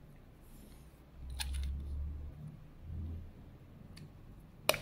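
Light handling of a flaring tool's metal clamp bar as a copper tube is slid into it: a few small metallic clicks with dull handling rumble, and a sharper click near the end.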